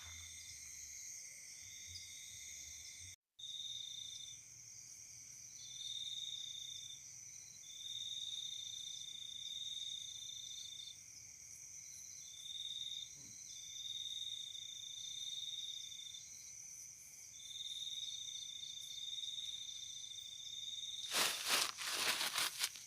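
Night insect chorus: crickets and other insects keep up a steady high-pitched chirring, and one high trill comes and goes in bursts of about one to two seconds. Near the end there is a burst of loud crackling rustles.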